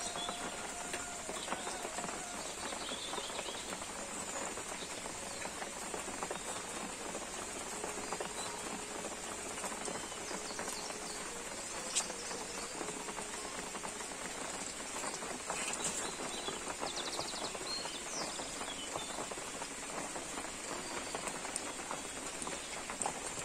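Light rain pattering and dripping on leaves, steady throughout, with a constant high-pitched hiss above it and a few faint bird chirps. One sharp tap about twelve seconds in.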